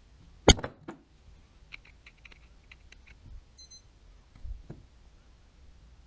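Small hard parts being handled during reel work: one sharp knock with a short ring about half a second in, then a run of light clicks, a brief high ring a little past the middle, and a duller knock near two-thirds of the way through.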